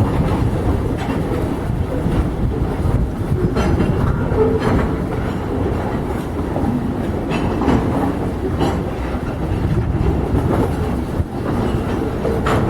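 Freight train wagons rolling past: a steady low rumble with irregular clacks and clanks from the wheels and cars.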